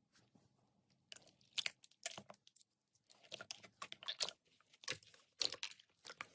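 Slime being squeezed and worked by hand close to the microphone, giving irregular crackling, crunchy pops. The crackles are sparse at first and come thick and fast from about three seconds in.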